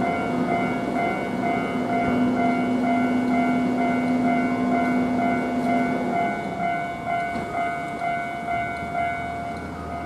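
Japanese level crossing's electronic warning bell ringing a steady kan-kan about twice a second, over a Keihan Main Line electric train running past that fades out about six seconds in.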